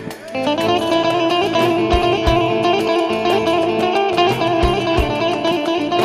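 Instrumental break in live arabesk music: a plucked string instrument plays a fast run of notes over the band, with low drum beats falling in pairs.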